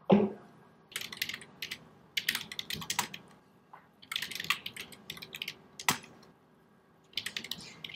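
Computer keyboard typing in several short bursts of rapid key clicks, with a duller knock at the very start and one louder single click about three-quarters of the way through.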